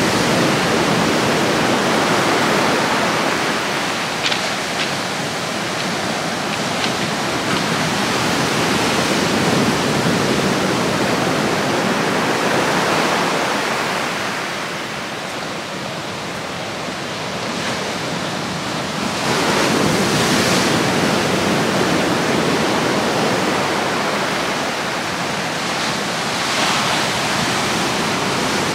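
Sea surf washing on the shore: a steady rush that swells up a few times, most strongly about two-thirds of the way through.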